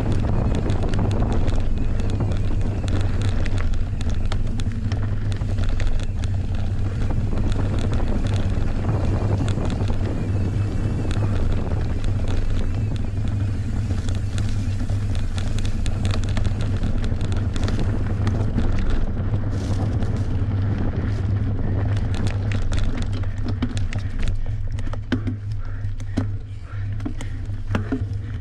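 Wind rumbling on the camera microphone as a Merida One-Sixty enduro mountain bike is ridden fast downhill. Clicks and rattles from the bike and tyres on rough trail run throughout and come thicker in the second half.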